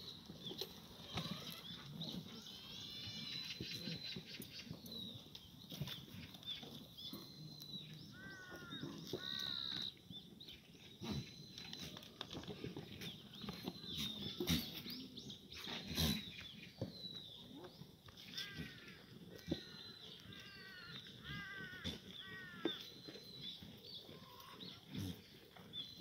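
A herd of Korean black goats bleating on and off, with short rising-and-falling calls repeating every few seconds and scattered knocks and clicks.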